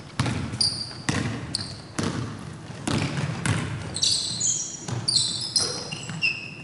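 Basketball dribbled on a hardwood gym floor, about one bounce a second, with sneakers squeaking on the floor in short high chirps, several at once around four to six seconds in.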